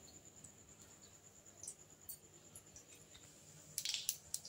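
Mustard seeds starting to pop in hot oil in a stainless steel kadai: faint scattered pops, then a quick cluster of crackles near the end as the tempering begins to splutter.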